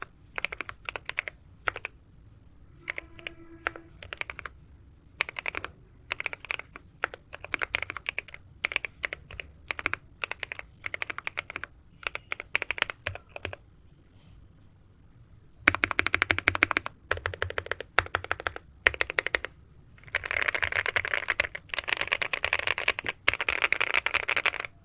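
Sugar 65 mechanical keyboard fitted with Attack Shark Jelly Green linear switches, typed on in short bursts of clacking keystrokes. The typing turns fast and dense, and louder, at about 16 seconds and again from about 20 seconds on.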